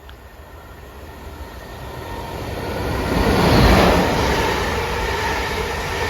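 South Western Railway Class 444 electric multiple unit passing through the station, its noise building steadily to a peak about three and a half seconds in and staying loud as the carriages go by.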